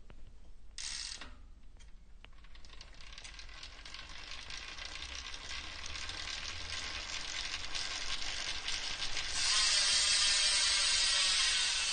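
VG Sports 18-tooth single-speed bicycle freewheel ratcheting as it spins, its six short pawls clicking fast and densely. The clicking grows steadily louder and steps up sharply near the end. A short hiss comes about a second in.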